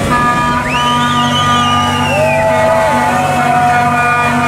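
A fishing boat's inboard engine running steadily as it passes at speed. Over it are several held high tones and a whistle that rises about a second in, wavers, and fades away by halfway through.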